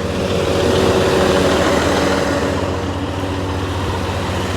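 Heavy truck diesel engine idling with a steady low throb, swelling a little about a second in and then settling.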